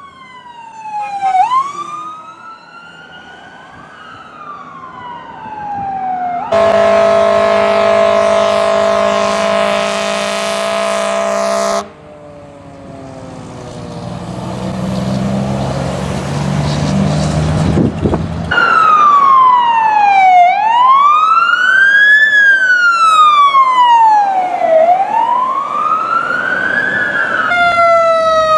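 A series of fire-truck warning sounds, one after another. First an electronic siren wails faintly. Then a long, loud horn blast of several tones held together cuts off sharply, followed by rising vehicle noise and a loud electronic siren wailing up and down about every two seconds.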